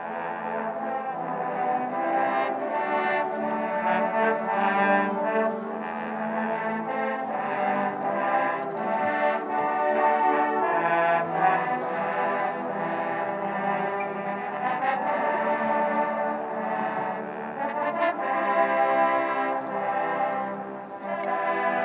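Marching band playing a brass piece that features trombones. The band comes in together right at the start and plays on with full, sustained brass notes.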